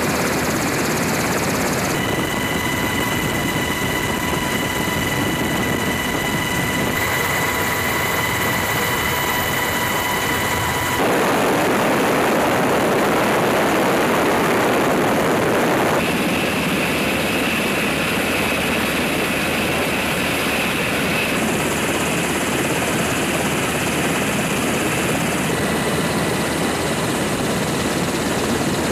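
MH-60S Sea Hawk helicopter running loudly: a dense rotor and turboshaft engine noise with a steady high turbine whine over parts of it. The sound shifts abruptly several times as it cuts between recordings, and is loudest in flight about halfway through.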